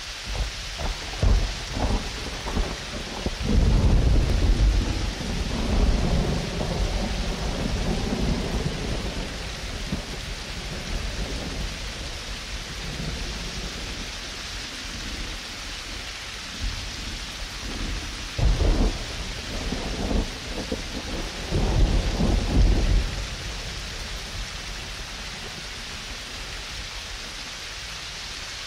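Steady rain with rolling thunder: a long rumble starting about three seconds in and lasting several seconds, and more rumbles between about eighteen and twenty-three seconds in.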